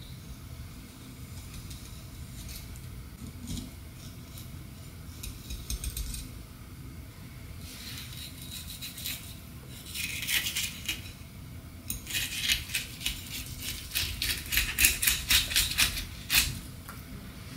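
Kitchen knife cutting up a fish on a cutting board: scattered scrapes and light clicks, then a dense run of quick sharp clicks from about twelve seconds in as the blade works through the fish.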